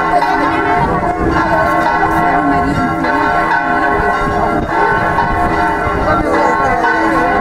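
Church bells ringing, with a crowd talking underneath.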